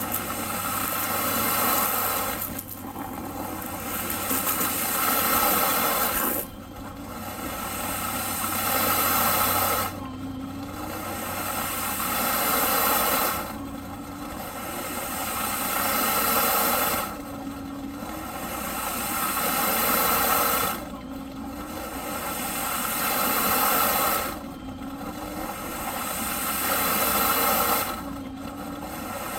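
Eureka PowerSpeed vacuum cleaner running, its noise swelling for about three and a half seconds and then dropping suddenly, over and over in a steady cycle.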